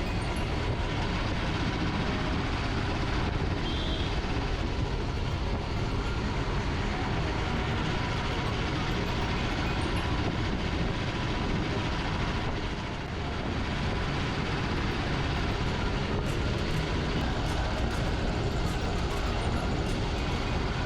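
Mumbai Metro Line 2A electric train running between stations, heard from inside the carriage: a steady rumble of wheels and running gear, with a brief dip about thirteen seconds in.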